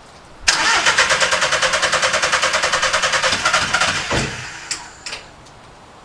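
VW Caddy van's common-rail diesel engine being turned over by the starter motor, pulsing evenly at about eight beats a second for some three and a half seconds without catching, then stopping with a thump. The failed start comes after new injector codes were entered; a fault code afterwards still shows injector one as an open circuit.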